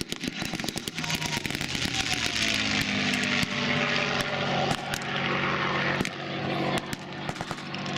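North American P-51 Mustang's Merlin V-12 engine and propeller in a low fly-by, the pitch falling as the plane passes, then running steadily as it climbs away.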